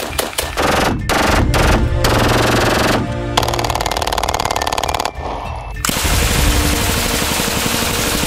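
Gunfire from several firearms cut one after another, among them an AA-12 automatic shotgun and a pistol, with music underneath. There are a few separate shots in the first two seconds, then rapid automatic fire that breaks off abruptly about five seconds in, and more fire near the end.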